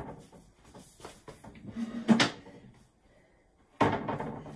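Knocks and clunks of an IKEA Norden gateleg table being handled as its drop leaf is lowered: a sharp knock at the start, a smaller clunk about two seconds in, then louder clattering near the end.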